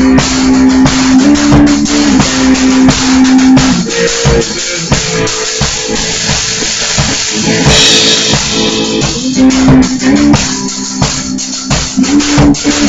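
Electric guitar and drum kit playing an instrumental stoner rock riff together, with held low guitar notes and steady drum hits, recorded through a laptop microphone with poor sound quality.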